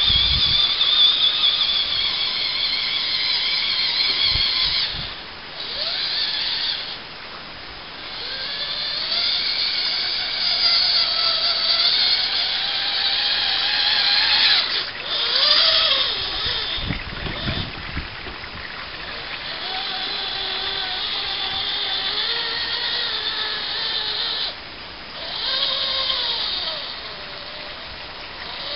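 Home-built RC 6x6 truck's two brushed 55-turn crawler motors whining through its Clod Buster axle gearboxes. The pitch rises and falls with the throttle, and it stops briefly a few times.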